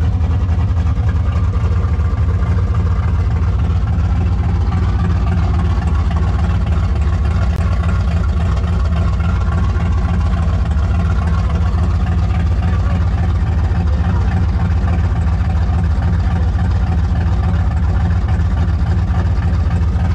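5th-generation Chevrolet Camaro engine idling steadily close by, a deep, even rumble with no revving.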